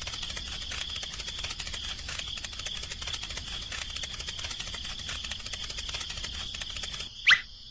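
Rapid, continuous clicking and rattling over a steady high whine, stopping abruptly near the end, followed at once by a short rising chirp.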